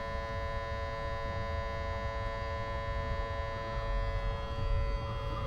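Small electric pump of an exhaust smoke leak-detection machine running steadily with a buzzing hum while it pushes smoke through the exhaust.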